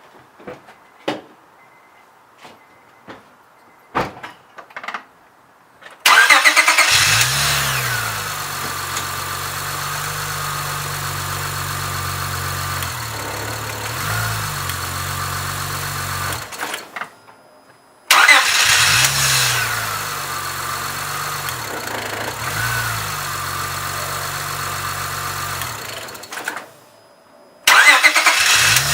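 Honda Accord 3.0-litre V6 started three times: each time it cranks, catches with a loud flare and settles into a steady idle. After the first two starts it is shut off about ten and eight seconds later. A few sharp clicks come before the first start.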